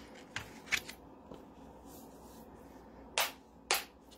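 Plastic stamp-set packaging being handled and pulled out: a few light clicks, then two louder, short, sharp rustles about half a second apart near the end.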